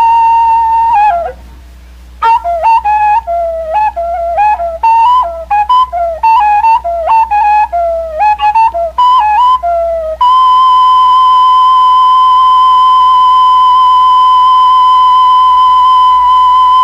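A single whistle-like wind instrument playing a slow melody. A long held note gives way to a run of short notes, each dropping in pitch as it ends, and then another long, steady held note that slides down at the very end.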